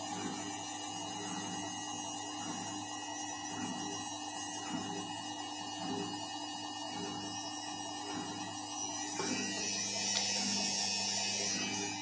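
Candy CS 105 TXT R front-loading washing machine in its spin cycle: a steady motor hum with a regular pulse a bit faster than once a second. About nine seconds in, a new steady tone joins and the high hiss gets louder.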